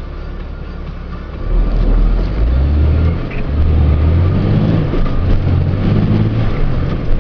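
Truck engine heard from inside the cab, growing louder about a second and a half in as the truck pulls away, its low drone rising and dropping several times.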